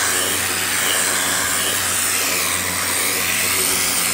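Hart 2000 PSI electric pressure washer running steadily, its motor and pump humming under the loud hiss of the high-pressure water jet spraying the carpet.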